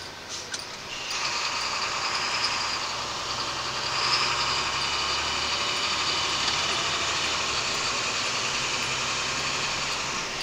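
Fire engine driving on an emergency run, heard from inside its cab. A loud steady noise comes in suddenly about a second in and runs on, high and hissing, with a low drone of the engine under it.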